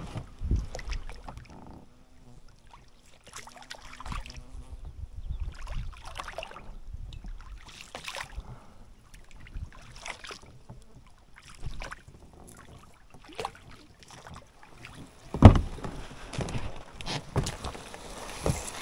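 Oars rowing a small boat, a stroke about every two seconds. A single loud knock about fifteen seconds in.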